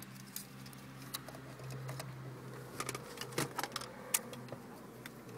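Scattered clicks and knocks of a plastic wiring-harness connector and the car radio unit being handled, over a steady low hum. The clicks are thickest about three seconds in.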